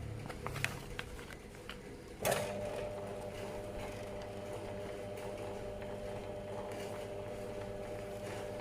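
Plastic snap-button fastening machine: a few light clicks as parts are handled, then a sharp click about two seconds in, after which a steady mechanical hum runs.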